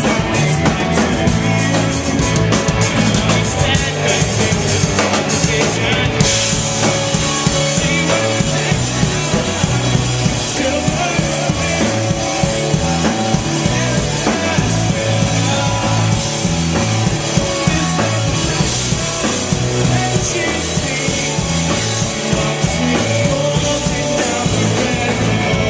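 A rock band playing loud live, drum kit and amplified instruments together; about six seconds in, the cymbals open up and the sound grows brighter.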